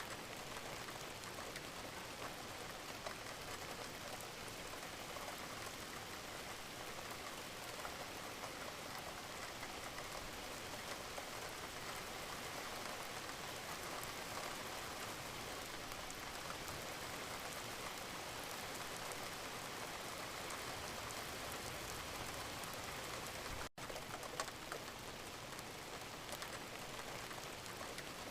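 Steady rain falling, an even patter of drops. About three-quarters of the way through, the sound cuts out for a split second, then carries on.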